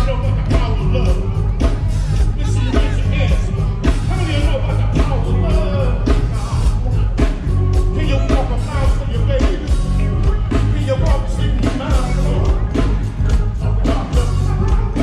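A band playing with a singer: a steady drum beat over heavy bass, with the voice weaving above.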